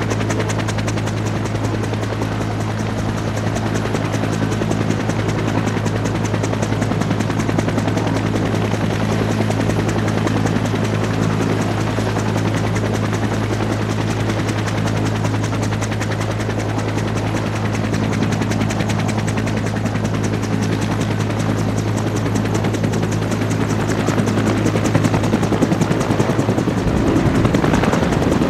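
Bell AH-1 Cobra helicopter running on the ground at flight rotor speed: a steady rotor chop from its two-blade main rotor over a high, thin turbine whine. Over the last few seconds the sound grows louder and changes as the helicopter pulls pitch and lifts off into a hover.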